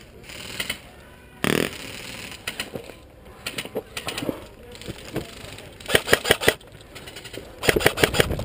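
Airsoft guns firing in rapid bursts of sharp clicks: scattered shots, a short burst about six seconds in, then sustained rapid fire near the end. A single loud noise comes about a second and a half in.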